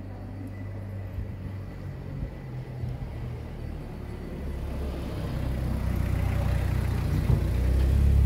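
A car or other motor vehicle approaching, its low rumble and tyre noise growing steadily louder.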